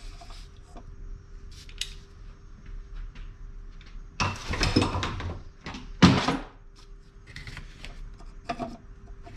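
Hand tools clattering as the socket and extension are handled and set down: two loud rattling bursts about four and six seconds in, with lighter clicks before and after.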